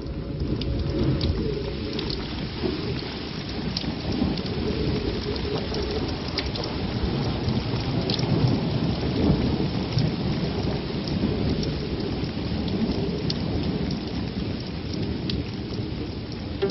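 Steady rain with a continuous low rumble of thunder, with scattered sharp ticks of drops.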